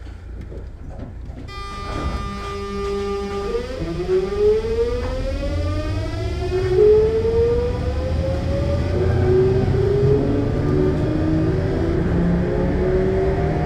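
Sotetsu New 7000 series electric train's VVVF inverter and traction motors starting up from a stop. About a second and a half in, steady whining tones begin. From about three and a half seconds in, several whining tones glide upward in pitch as the train accelerates, with a low running rumble building beneath.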